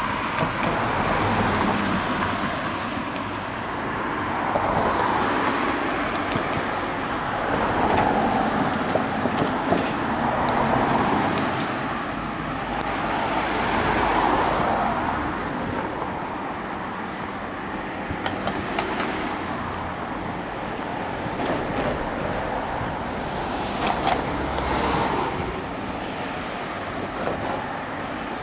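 Road traffic: a steady stream of cars passing close by, the noise swelling and fading as each one goes past.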